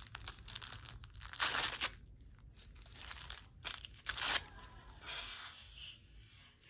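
Paper backing being torn away in a few short rips from fringe stitched to a dress, with soft rustling of paper and fabric between them.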